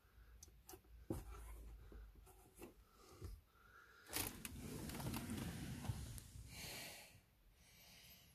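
Faint clicks as the Volkswagen navigation SD card is pushed in and sprung out of the glovebox card slot, followed about four seconds in by a few seconds of rustling handling noise.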